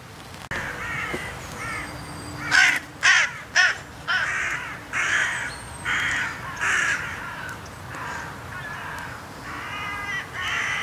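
A flock of carrion crows cawing over and over as they lift off and circle. The harsh calls come thick and loud a few seconds in, then about one a second. The observer puts the commotion down to a bird of prey arriving, which he takes for a falcon or sparrowhawk.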